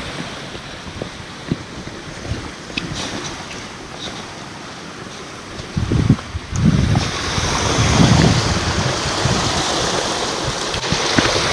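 Wind buffeting the microphone in rumbling gusts, with scattered small knocks and scuffs of footsteps on a rocky mountain path. The wind noise grows louder about seven seconds in.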